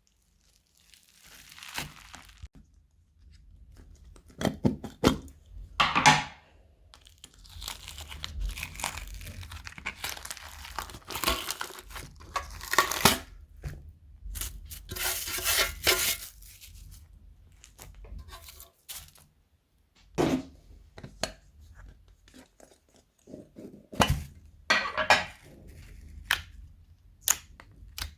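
Crunchy slime with plastic-bag and foam-brick pieces worked by hand: irregular bursts of crinkling, crunching and tearing, with a short pause about two-thirds of the way through.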